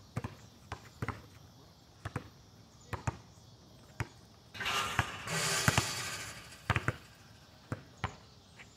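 Basketball bouncing on an asphalt court, a string of sharp, separate smacks spaced a fraction of a second to a second apart. About halfway through, a loud rushing noise rises and lasts about two seconds.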